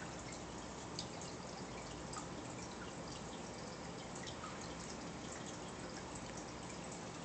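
Aquarium filter water trickling steadily, with faint scattered drips, one a little louder about a second in.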